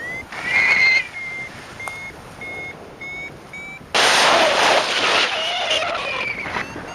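Paragliding variometer beeping in short, evenly spaced beeps that rise slowly in pitch, the climb tone that signals the glider is going up. About four seconds in, a loud rush of wind noise covers the beeps.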